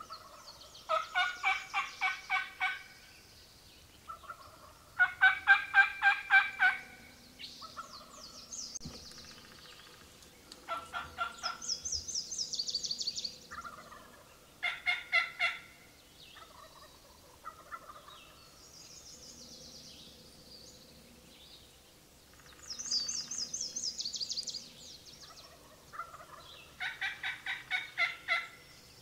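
Wild turkeys gobbling and calling, in about eight separate bursts of rapid notes, each one to two seconds long. The loudest burst comes about five seconds in, and a few fainter, higher-pitched bursts come in between.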